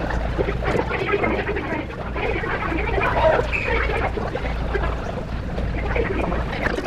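Crowd noise: many people chattering, calling and shouting at once, with no single voice standing out.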